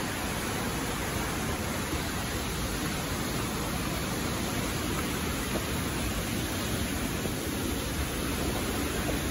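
Steady rush of a whitewater river tumbling over rocks.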